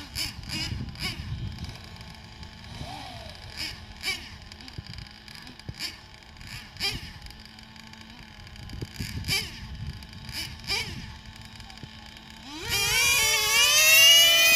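Remote-control drag car launching near the end, its motor making a loud whine that rises sharply in pitch and then holds. Before that there are only faint background noise and scattered light clicks.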